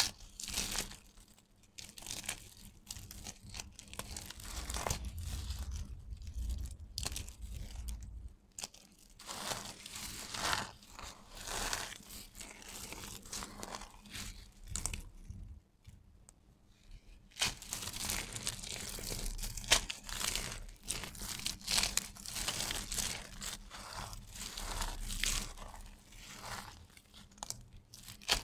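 Hands crushing and rubbing a heap of dry carved soap shavings, giving a dense, irregular crunching and crackling. There is a short lull a little past halfway, and the crunching is busier after it.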